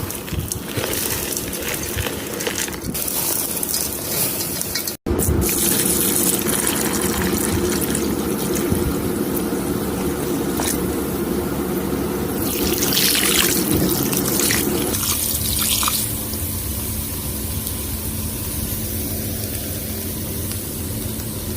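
Chalky earth paste worked in water, giving a steady wet sloshing and squelching, with a brief break at an edit about five seconds in and a quieter stretch near the end.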